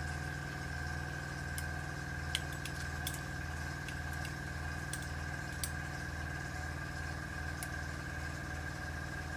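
Small airbrush compressor running steadily with a low, pulsing hum, while the airbrush is being cleaned by blowing air through it. A few faint clicks fall in the middle.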